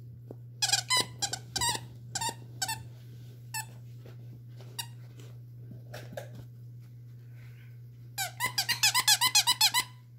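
Squeaker in a plush moose dog toy squeaking as a poodle puppy chomps on it: a cluster of short squeaks in the first few seconds, a few single squeaks, then a fast run of about a dozen near the end.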